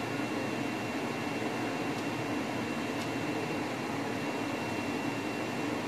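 A fan running with a steady whir and a faint high-pitched whine on top.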